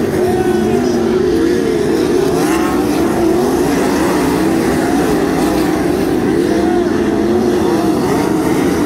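A pack of winged 410 sprint cars running together, their V8 engines overlapping and rising and falling in pitch as they go around the track.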